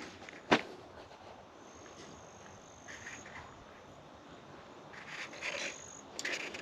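Quiet background with one sharp click about half a second in and soft rustling. A faint, thin, high steady whistle comes in twice.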